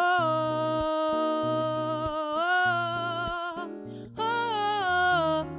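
A woman singing long held wordless 'oh' notes over acoustic guitar, with a short break about four seconds in before the next note.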